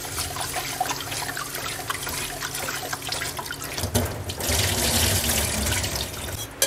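Water running from a kitchen tap as rice is washed in a pot, the water splashing over the grains; the flow gets louder about four seconds in.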